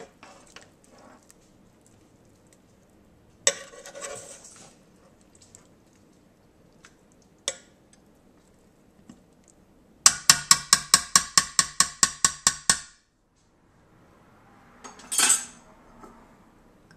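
Metal serving fork clinking and scraping against the pot of a Ninja cooker, with a fast even run of about sixteen ringing taps, about five a second, some 10 seconds in.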